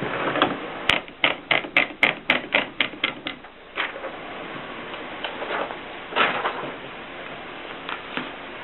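Mignon Model 4 index typewriter typing: a quick run of about ten key strikes, roughly four a second, then a few scattered clicks of the mechanism.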